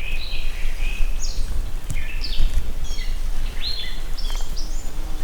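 Songbirds singing in short, bright phrases, one after another and overlapping, over a steady low rumble.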